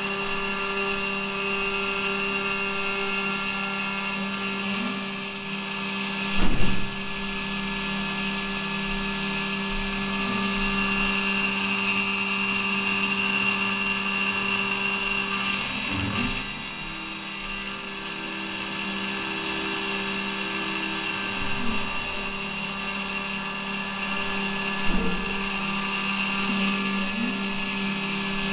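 Desktop CNC milling machine (model 7073) cutting aluminium with a small end mill under coolant: the spindle's steady high whine and the hiss of the cut, over a steady lower machine hum whose pitch dips and glides briefly a few times. There is a sharp knock about six and a half seconds in, and a smaller one near the end.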